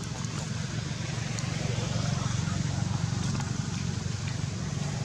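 Steady low rumble of a motor vehicle engine, swelling a little after about two seconds, over a background hiss.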